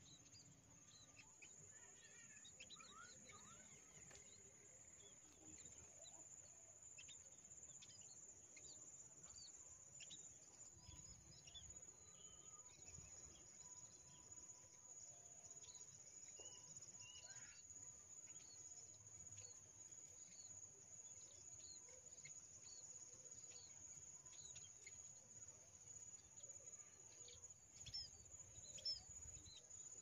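Faint, frequent short high chirps of small munias (emprit) over a steady high-pitched insect drone, with a soft low rumble near the end.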